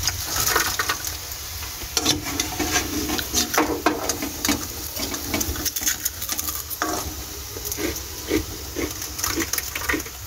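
Crisp fried papad rattling and clattering as a wire mesh skimmer scoops them out of hot oil and tips them onto a plate, with the frying oil sizzling underneath. The clicks come in quick irregular clusters.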